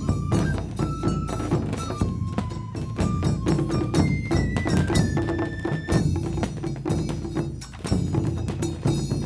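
Music with a driving, densely struck percussion beat. A single melody line of held notes steps up and down in pitch over it and drops out about six seconds in.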